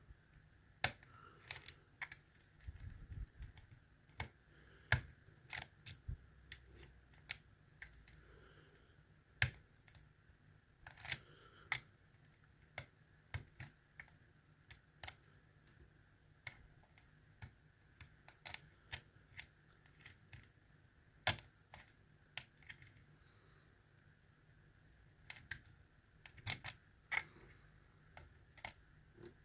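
Dimple pick working inside a Mul-T-Lock Interactive euro cylinder under tension: irregular, faint, sharp metallic clicks and taps as the pick probes and lifts the pins.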